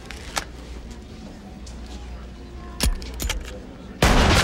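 Film soundtrack with a low steady hum and a few sharp metallic clicks or clinks, the loudest almost three seconds in. Near the end a crowd suddenly breaks into loud shouting and cheering.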